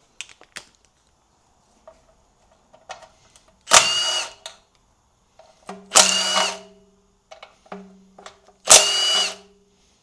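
A cordless power tool spins out 10 mm oil pan bolts on a 6L80 transmission in three short bursts, about two and a half seconds apart. Small clicks and clatter of metal parts come between the bursts.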